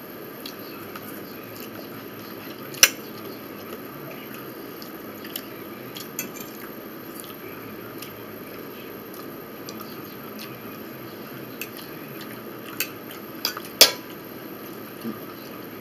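Forks clinking now and then against plates and a plastic food tray, with chewing, over a steady low hiss. The two loudest clinks come about three seconds in and again near the end.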